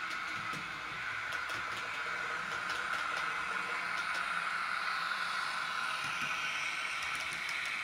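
Bachmann OO-gauge Windhoff MPV model running on track, its digital sound decoder playing a diesel engine sound through a small on-board speaker. Light clicks of the wheels over rail joints come through it, and the sound grows louder as the model passes close by.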